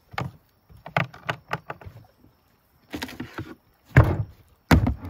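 A string of sharp knocks and clunks from food containers and cooking gear being handled and set down on a boat, the loudest about four seconds in and just before the end.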